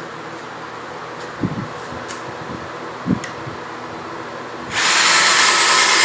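A couple of light knocks from handling the wood, then a power drill runs hard for about a second and a half near the end, drilling into pallet wood, likely a pocket hole through a pocket-hole jig set for the thicker board.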